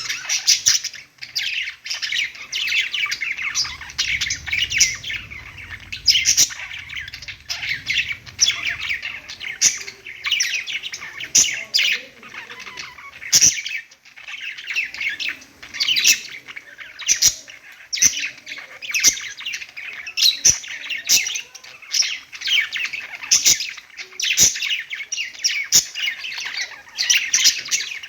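Budgies chattering and warbling without pause, a dense stream of chirps and squawks, with sharp clicks every second or two.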